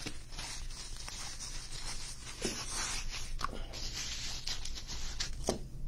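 Foam packing wrap and plastic rustling and crinkling without a break as hands unwrap a stack of trading card packs, with many small crackles.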